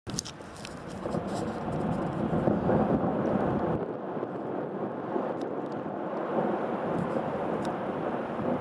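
Ice avalanche falling from a hanging glacier down a rock cliff: a continuous rumble of tumbling ice and snow. It builds over the first couple of seconds, is loudest about two and a half to three seconds in, then carries on steadily.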